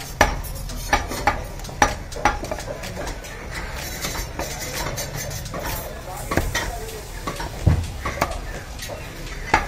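A butcher's cleaver chopping goat meat on a wooden chopping block: sharp knocks at an irregular pace, several in quick succession at first, fewer for a few seconds in the middle, then more again with a heavier thud near the end.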